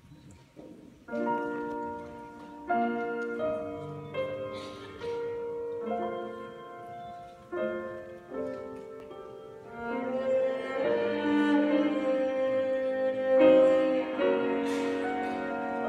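Piano and cello playing a slow instrumental introduction. Piano chords are struck every second or two with sustained cello notes under them, and the music grows louder from about ten seconds in.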